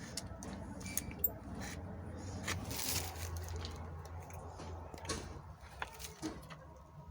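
Hands handling pram wheel parts and bolts: scattered light clicks and knocks, with a brief rustle about three seconds in, over a low steady hum.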